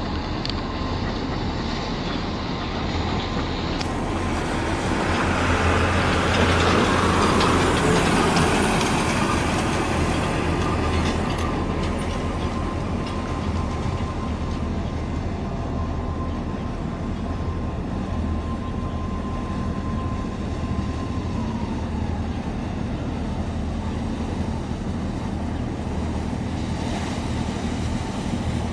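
Steady low rumble of a large container ship passing close by, with a louder stretch of rushing noise about five to nine seconds in. A faint high whine holds steady, then slides down in pitch about three-quarters of the way through.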